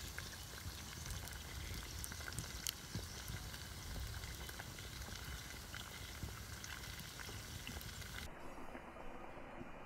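Banga Mary fish frying in hot oil in a pot over a wood fire: steady sizzling with scattered sharp pops and crackles. About eight seconds in, the high hiss of the sizzle drops away abruptly.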